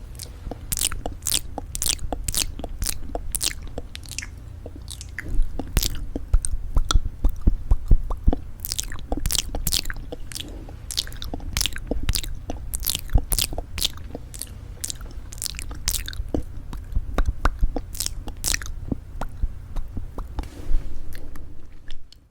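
Close-miked tapping on lipstick cases: quick, irregular clicking taps, several a second, with brief pauses between runs.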